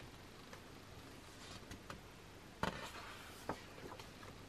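Thick photobook pages being turned by hand: faint paper ticks early on, then a short papery swish a bit over halfway through and a lighter one about a second later.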